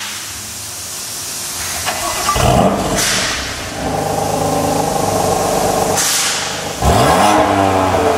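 BMW M2 Competition's S55 twin-turbo inline-six, on the stock exhaust with an aftermarket VRSF downpipe, starting up about two seconds in with a loud flare and settling to a steady fast idle. Near the end it is revved, the pitch sweeping up sharply and holding high.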